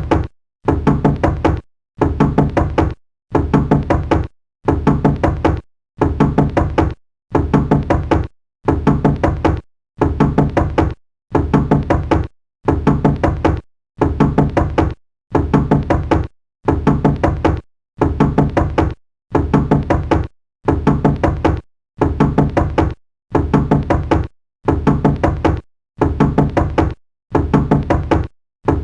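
Knocking on a door in steady bursts of several quick knocks, each burst about a second long, repeating after short pauses about every second and a half.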